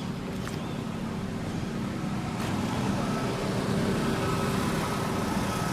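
Steady low rumble of a running motor vehicle, with a faint steady whine on top.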